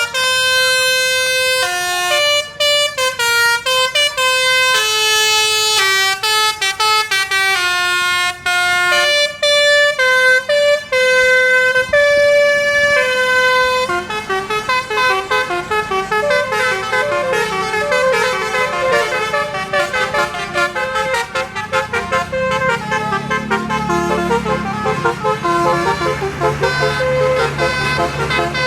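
Roof-mounted multi-trumpet basuri telolet bus horn playing a tune of stepped notes, switching about halfway to a faster run of quick notes. A low engine rumble joins under it near the end.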